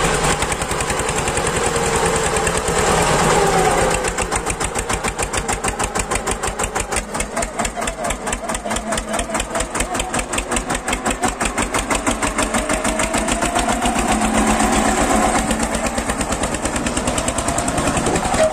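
Eicher 242 tractor's diesel engine working under load, hauling a loaded trailer through shallow water and mud. The pitch wavers during the first few seconds, then settles into a fast, even chugging from about four seconds in.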